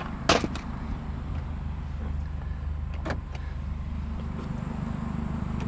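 A vehicle engine running steadily, with a few short sharp knocks, the loudest near the start.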